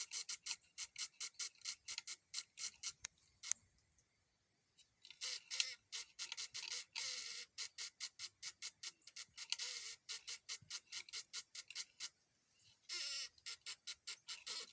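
Rapid, even ticking from within a wooden board, about four sharp clicks a second, stopping twice for a second or so and resuming.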